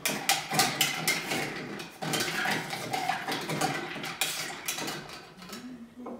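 Mint leaves being muddled in a stainless steel cocktail shaker tin. Quick, irregular knocks and scraping of the tool against the metal, with a light metallic ring, stopping shortly before the end.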